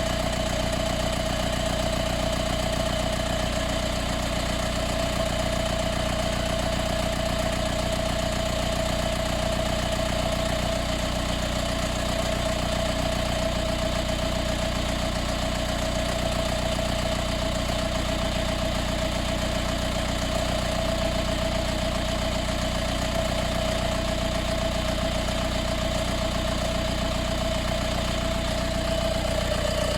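Mercedes B180 CDI's four-cylinder diesel engine idling warm, with a steady added rattle from the engine bay. The rattle is like an extra engine or fan running, and appears only after warm starts.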